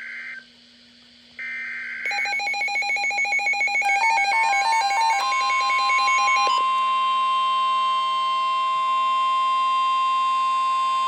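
NOAA Weather Radio alert opening: short bursts of SAME digital header data, then a jumble of stepped electronic beeps. From about five seconds in comes the steady 1050 Hz warning alarm tone.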